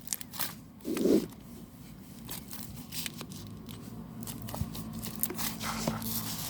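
Packaging being handled, crinkling and tearing in a series of sharp crackles, with a heavier rustle about a second in. A faint steady hum comes in during the second half.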